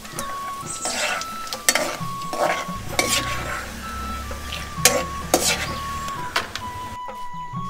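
Peanuts sizzling as they deep-fry in hot oil in a metal wok, while a metal slotted spoon stirs them and knocks and scrapes against the wok several times.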